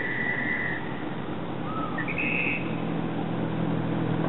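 Street traffic: a vehicle engine hum that grows steadily louder, with a few short high whistled notes in the first two and a half seconds.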